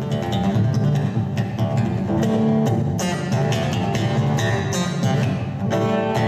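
Solo acoustic guitar played live, a quick run of sharply attacked plucked notes and strums.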